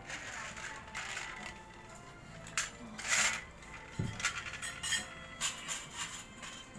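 Irregular clinks and taps of spoons on plates and shells during a seafood meal, with faint music in the background.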